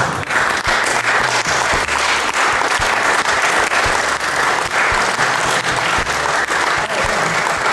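Audience applauding: a room full of people clapping steadily and loudly.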